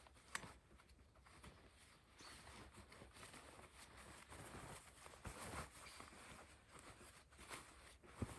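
Quiet outdoor ambience with scattered faint crunches and clicks, and a couple of sharper clicks shortly after the start and near the end.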